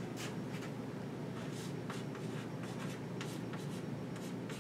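Chalk writing on a blackboard: a run of short, scratchy strokes and taps at an irregular pace, over a steady low background hum.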